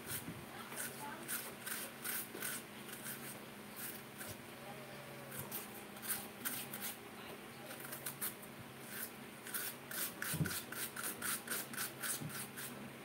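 Quick, repeated scraping strokes as soft cooked potato flesh is scraped out of a halved potato's skin. The strokes come in short runs of several a second with pauses between them.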